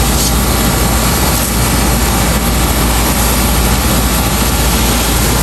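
Outdoor air-conditioner condenser unit running: a loud, steady machine drone with a low hum and fan noise, unchanging throughout.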